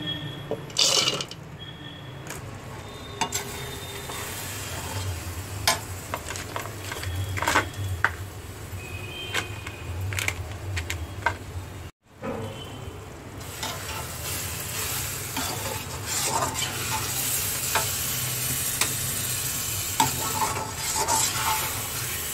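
Clinks and knocks of kitchenware being handled, then, after a brief break, a metal spoon stirring and scraping beetroot mixture in an iron kadai with a steady sizzle as it fries.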